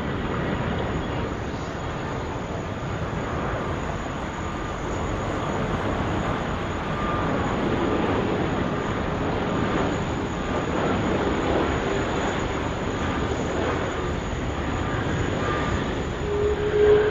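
Jet airliner engines running in a steady rumbling roar, with a faint whine above it.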